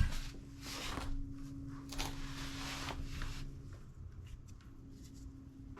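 Hand-turning a socket on a small extension to run wheel hub bolts in finger-tight: short scraping rasps about a second in and again two to three seconds in, then light metallic clicks. A faint steady hum runs underneath.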